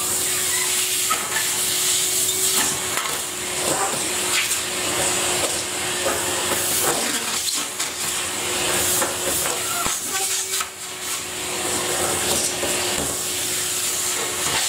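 Numatic Henry canister vacuum cleaner running, a steady rushing hiss over a steady motor hum, with irregular crackling as dry leaves are sucked up from the carpet.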